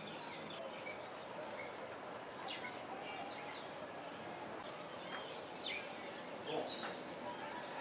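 Several birds chirping and calling at intervals, short quick notes, some sweeping downward, over a steady background hiss.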